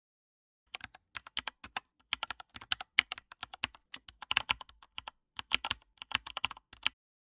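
Typing on a computer keyboard: quick runs of key clicks with two short pauses, starting just under a second in and stopping shortly before the end.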